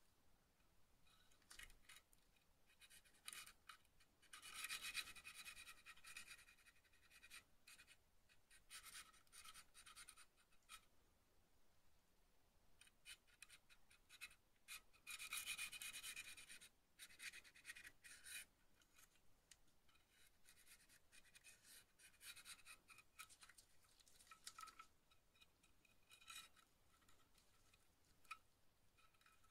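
Hobby knife blade scraping burrs off a part of a VSR-10 airsoft rifle: faint, repeated scraping strokes with pauses between them, the longest runs about five and fifteen seconds in.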